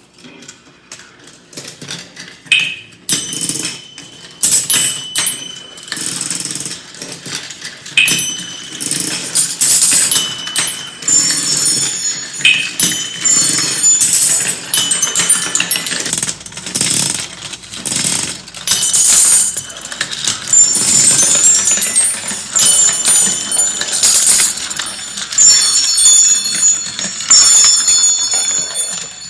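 Many marbles rolling and clattering down a plastic marble run and striking its percussion parts: irregular clacks and knocks mixed with short, high ringing metal tones. It builds to a dense, constant clatter of strikes and ringing in the second half.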